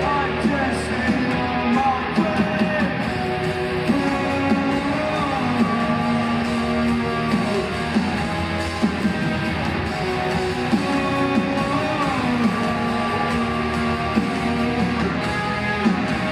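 Live rock band playing loudly, with electric guitar lines over bass and drums.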